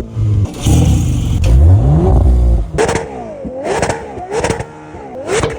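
Car engine being revved while stationary: a rising rev about two seconds in, then four quick throttle blips, the pitch dipping and climbing on each.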